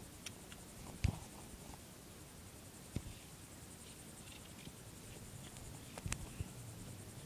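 A few scattered sharp knocks and clicks, the loudest about a second in and near the end, over a low steady background hum.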